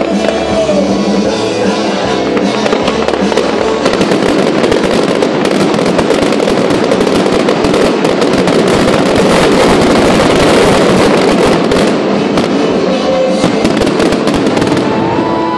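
Fireworks display finale: a dense run of bursts and crackles over loud accompanying music, building from about two seconds in and thinning out near the end.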